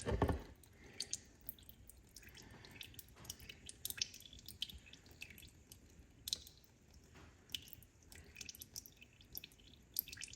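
Engine oil dripping and trickling into a bucket as a removed oil pan is poured out, in small irregular drips, with a short knock right at the start.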